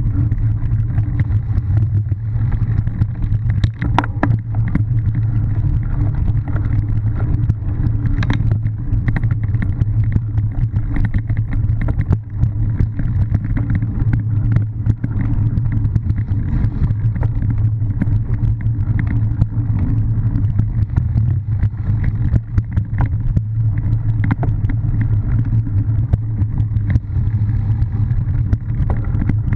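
Steady muffled rumble of wind and vibration on a bike-mounted camera, with rattles and knocks from bumps as a cyclo-cross bike rides over grass and leaf-covered dirt. A few sharper knocks come about four and eight seconds in.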